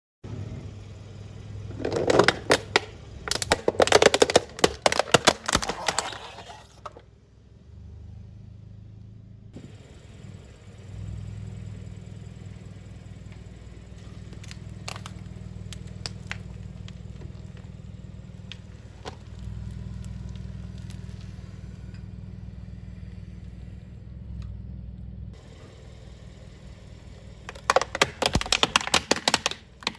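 Bursts of crackling and crunching near the start. Then a car idles with a steady low hum and a few scattered clicks. Near the end comes loud cracking and crunching as the tyre rolls onto a plastic toy tank and flattens it.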